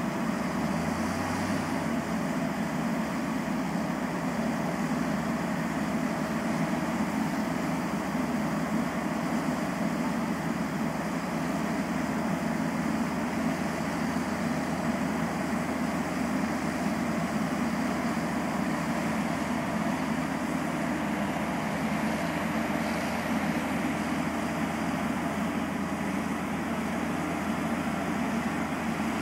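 Heavy truck and crane diesel engines running under load in a steady, unchanging drone as a heavy-haul tractor tows a 500,000-pound crane up a steep hill.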